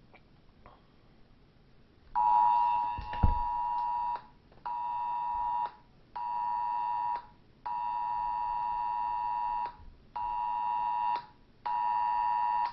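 Samsung Galaxy Note 10+ sounding an Amber Alert emergency-alert tone: a loud, harsh two-note blare starting about two seconds in, in the alert cadence of one long blast and two short ones, played twice. A single thump a little after the first blast begins.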